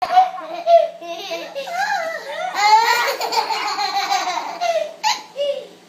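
Young children laughing and giggling excitedly in high voices, in repeated bouts.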